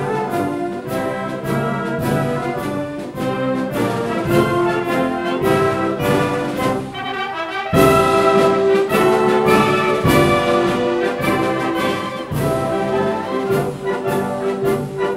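Brassy orchestral theme music with a steady percussive beat.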